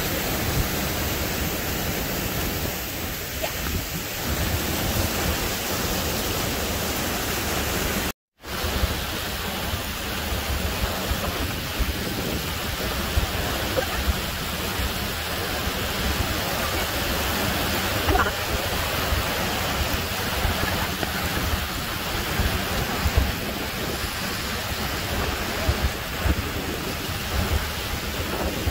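Steady rush of a creek waterfall cascading over rocks, with a brief full dropout about eight seconds in.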